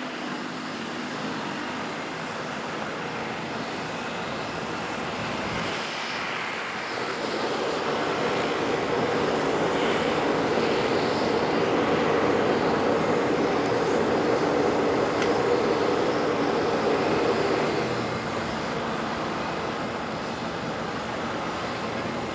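Jet aircraft engine noise, a steady rushing hum that swells about seven seconds in, stays at its loudest for around ten seconds, then eases back a little.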